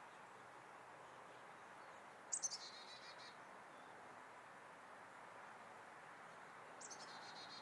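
A small songbird calling twice, each time a sharp high note running into a quick trill of rapid notes about a second long, the first about two seconds in and the second near the end. Faint steady background hiss otherwise.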